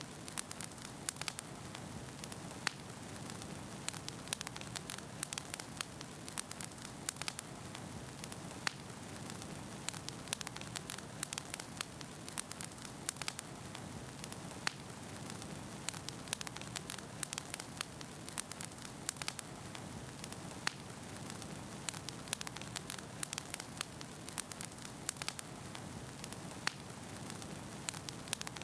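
Wood fire burning with a steady hiss and frequent sharp, irregular crackles and pops.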